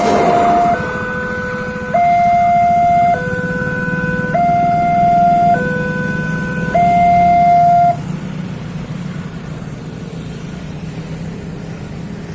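Railway level-crossing warning siren sounding a two-tone hi-lo wail, switching pitch about every 1.2 seconds, then cutting off about 8 seconds in as the crossing clears after the train. A steady low rumble of waiting road traffic runs underneath.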